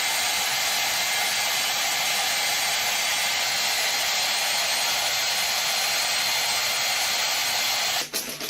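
A steady, loud rushing hiss that cuts off suddenly near the end.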